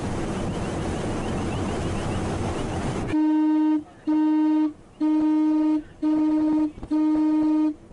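Wind and sea noise on the microphone. Then, about three seconds in, a ship's horn sounds five short blasts in quick, even succession: the five-short-blast danger signal, a warning to vessels closing in.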